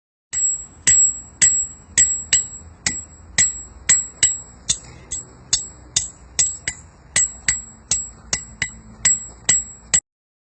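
Steady hand-hammer blows on steel being forged into a knife, about two a second, each strike ringing metallically. The hammering starts and stops abruptly.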